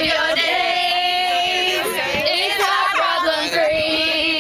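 A group of voices singing together unaccompanied, holding long notes.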